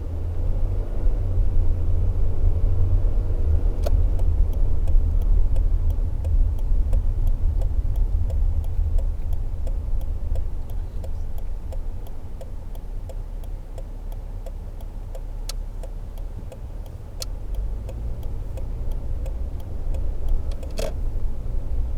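Toyota Tacoma pickup driving, a low engine and road rumble inside the cab that is loudest in the first few seconds, eases off and builds again near the end. A run of light clicks from about four seconds in.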